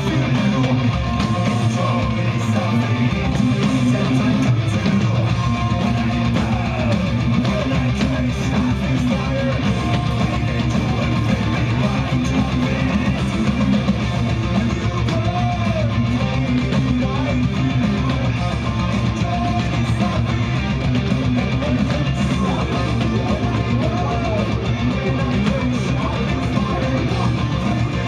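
Rock song with electric guitar playing loudly and steadily from a Pump It Up Fiesta EX dance arcade machine's speakers while a chart is being played.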